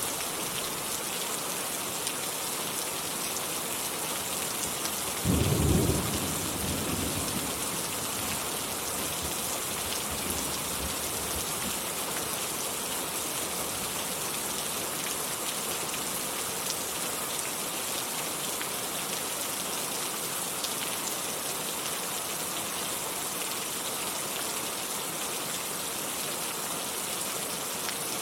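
Steady heavy rain falling, with a loud clap of thunder about five seconds in that rumbles away over the next few seconds, and a fainter rumble a few seconds later.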